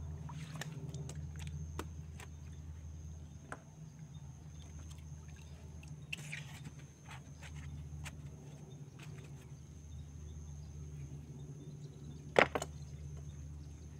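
Small knocks and clicks of handling inside a wooden dugout canoe, with a brief scrape about six seconds in as a styrofoam lid is lifted off the fish hold and one sharp knock near the end, over a steady low rumble.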